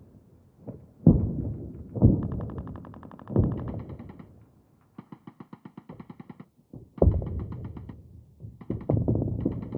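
Distant battle sound effect: heavy explosions, each a sudden boom that rolls away over a second or two, landing about a second in, twice more in the next few seconds and again near the end, with bursts of rapid automatic gunfire at about eight rounds a second between them.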